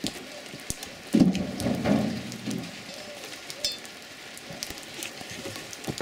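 Rain falling steadily, with a louder spell of knocking and rubbing from about a second in as a steel wheel is lifted onto the front hub.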